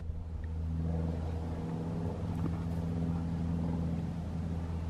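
A motor running with a steady low hum, getting slightly louder about a second in.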